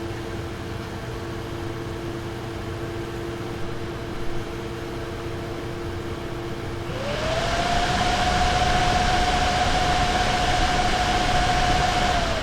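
Nvidia GeForce RTX 2070 Super graphics card cooling fans whirring steadily, then about two-thirds of the way in spinning up to a louder, higher whine with a rushing hiss, holding there a few seconds and starting to wind back down at the end. It is an unprompted fan-speed surge, the fault the owner reports.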